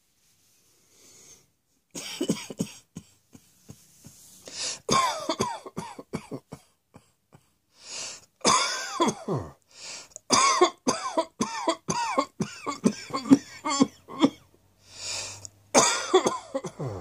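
A person coughing in repeated fits, starting about two seconds in: quick runs of harsh coughs, some voiced and throat-clearing, in bursts with short pauses between them.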